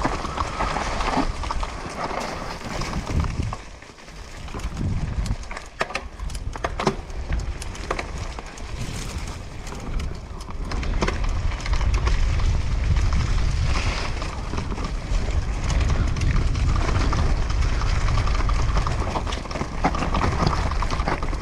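Mountain bike descending forest singletrack: tyres rolling over dirt and dry leaf litter, with sharp clicks and knocks as the bike rattles over bumps, and a low wind rumble on the microphone. The noise drops off briefly about four seconds in.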